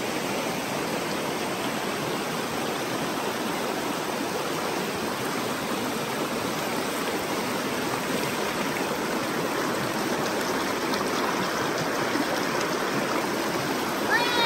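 Woodland stream running fast over rocks: a steady rushing wash of water spilling over a low rock ledge close by.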